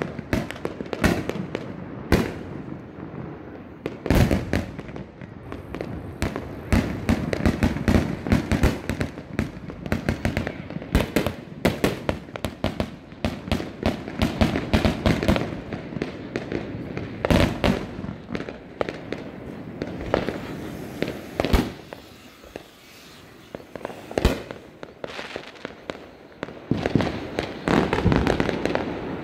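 Fireworks going off all around: a dense, irregular run of sharp cracks and bangs with crackling in between, thinning out briefly about two-thirds of the way through before picking up again.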